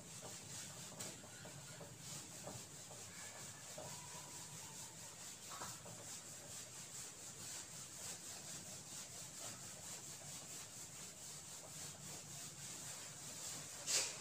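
A whiteboard eraser rubbing over a whiteboard to wipe it clean: faint, steady rubbing strokes, with a short knock near the end.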